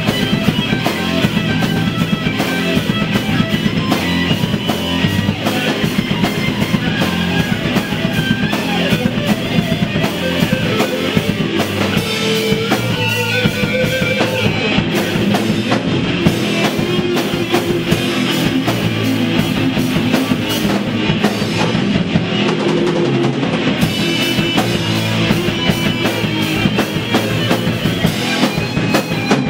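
Heavy metal band playing: a drum kit keeps a fast, driving beat under electric guitars and bass.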